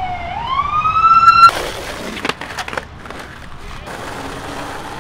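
An emergency-vehicle siren wails, dipping and then rising in pitch, and cuts off abruptly about a second and a half in. A few sharp knocks follow as a skateboard is dropped and stepped onto on the concrete road.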